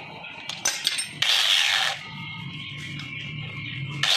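Metal tools and engine parts clicking and scraping, with two short, loud hissing bursts about three seconds apart over a steady low hum.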